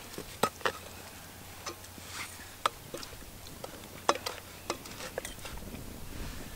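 Metal spoons and a ladle clinking against metal bowls and a cooking pot: irregular sharp clinks, about a dozen.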